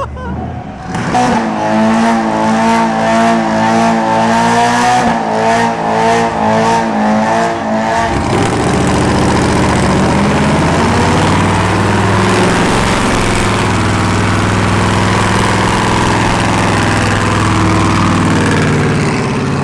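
Car engine revved hard, its pitch wavering up and down around high revs for the first several seconds. From about eight seconds in it holds steady at high revs under a loud hiss, then drops off right at the end.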